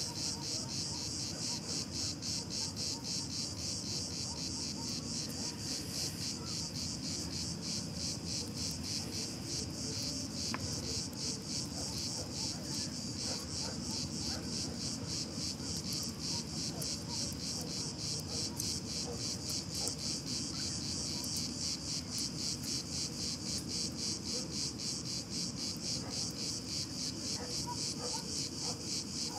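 A steady insect chorus: a high, even pulsing several times a second that goes on without a break, over a low background hiss.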